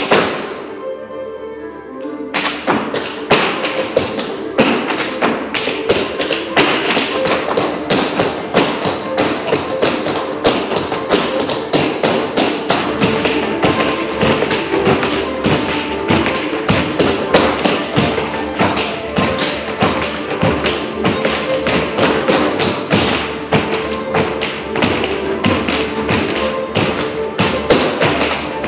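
Irish step dancers' shoes beating fast, rhythmic taps and stamps on a wooden floor, over music. One loud hit comes right at the start, and the run of taps begins about two seconds in.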